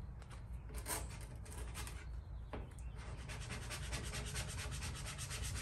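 Plastic credit card rubbed over the paper-backed vinyl decal on a steel toolbox, burnishing the decal down onto the wet-applied surface. A few single scrapes at first, then quick back-and-forth rubbing strokes from about three seconds in.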